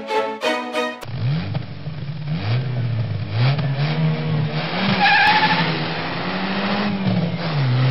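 Car engine accelerating: its note climbs and drops back several times as it runs up through the gears, then settles to a steady pitch near the end. About five seconds in there is a brief high-pitched squeal. Plucked-string music plays for the first second and cuts off.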